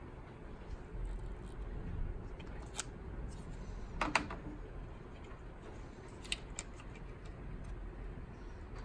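Scattered small clicks and plastic handling noises as an ink damper with a syringe attached is worked by hand on a UV printer's print head, the sharpest click a little after four seconds, over a low steady hum.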